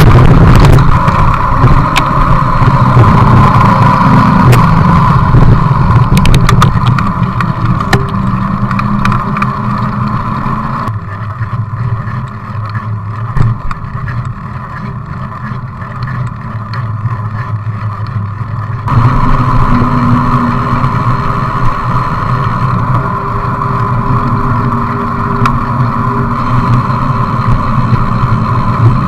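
Wind rushing over a bike-mounted action camera's microphone, with bicycle tyres rumbling as the mountain bike rolls fast, crackling over gravel in the first seconds and then on asphalt. The rush drops for several seconds in the middle, then picks up again.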